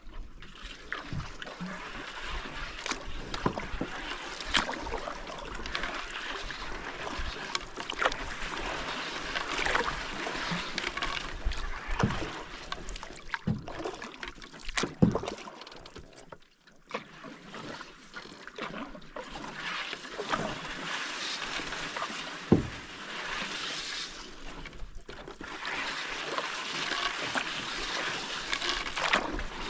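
Canoe being paddled: paddle strokes swishing and splashing in the water, with sharp knocks now and then, the loudest about 15 and 22 seconds in.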